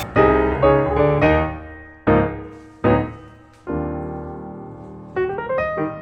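Background music: piano chords struck and left to ring out, with a slower stretch in the middle before the playing picks up again near the end.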